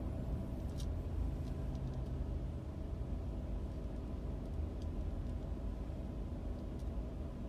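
Steady low rumble of a car's engine and running gear heard from inside the cabin while the car crawls in slow city traffic, with a few faint clicks.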